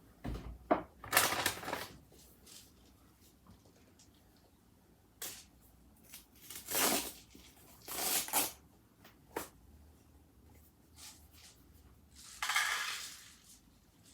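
Handling noises: a few sharp clicks and knocks with several brief rustling swishes, the longest near the end.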